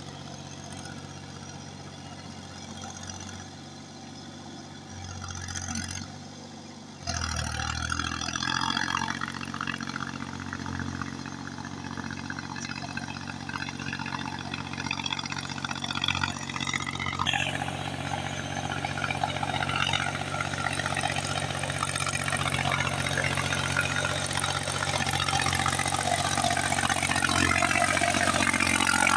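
Mahindra 275 DI tractor's diesel engine running as the tractor drives through paddy-field mud on cage wheels. It grows steadily louder as the tractor comes closer, with a sudden jump in loudness about a quarter of the way in.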